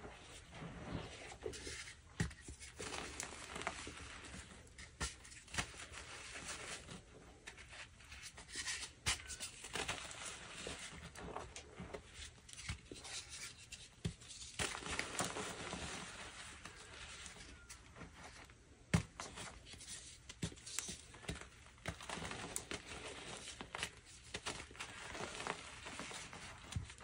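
Dyed dark blue BSN gym chalk being crumbled and crushed by hand: a continuous crackly crunching full of small sharp cracks, with one louder snap about two-thirds of the way through.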